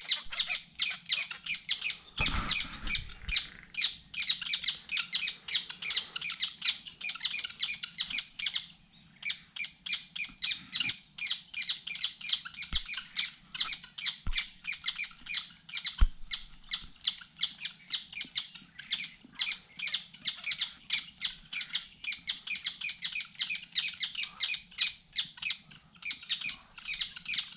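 Birds calling in the treetops: a continuous run of short, sharp, high calls, several a second, with a brief pause about nine seconds in. A few knocks cut in, the loudest about sixteen seconds in.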